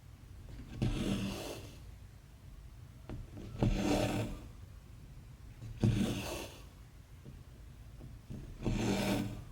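Cross-stitch floss pulled through stamped cotton fabric, a short rasp that starts sharply and fades, four times at roughly two-and-a-half-second intervals.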